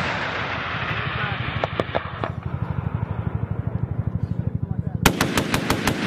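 Attack helicopter's rotor beating in a steady rapid pulse while the rumble of earlier fire dies away over the first two seconds; about five seconds in, a short burst of gunfire, roughly six shots in a second.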